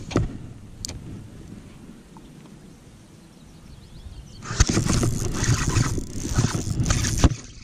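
Wind and handling noise on the camera microphone while a spinning rod and reel are worked. It turns much louder and rougher about four and a half seconds in, as a bass is hooked and played, and ends with a sharp click.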